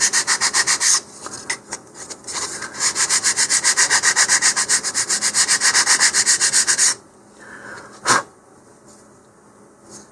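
Sanding block rubbed back and forth along the edge of a basswood model-rocket fin to round it, in quick even strokes several a second. The strokes pause briefly about a second in, resume, and stop about seven seconds in; a single knock follows about a second later.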